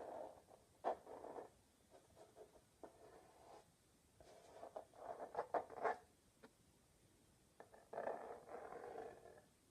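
Close-miked ASMR scratching and rustling in three short bouts, with a few sharp taps among them.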